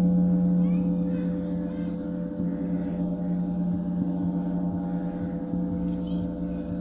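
Large concert gong ringing with a low, steady hum of several sustained tones, easing slightly in loudness over the first couple of seconds and then holding.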